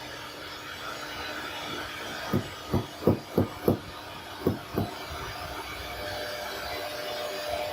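CNC router workshop: a steady machine hum, broken in the middle by seven short, heavy low thumps in two quick runs. About six seconds in, a steady whine joins, typical of the router spindle running.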